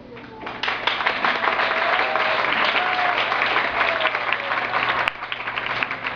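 Audience applauding. The clapping starts about half a second in and keeps up steadily.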